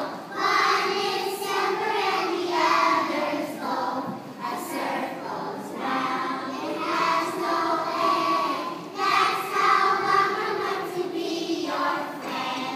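A class of young children singing together as a choir, phrase after phrase.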